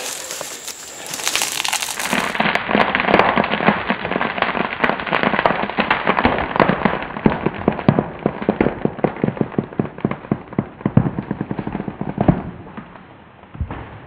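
Wood fibres in the hinge of a hand-sawn tree cracking and popping as the tree leans over and starts to fall. It is a dense run of sharp cracks that grows into separate loud snaps and stops abruptly about twelve seconds in.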